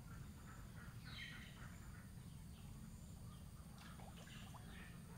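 Faint scattered bird chirps and calls over a steady low hum.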